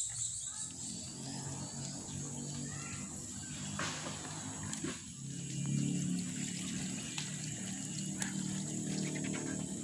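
Water sloshing and splashing as turtles move about in a shallow plastic basin, with a few sharp splashes about four and five seconds in. A steady high insect drone runs underneath, along with a low hum.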